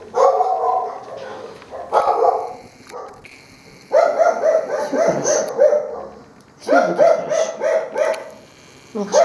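Dog barking in repeated bouts of quick, evenly paced barks, about four a second, with short pauses between bouts.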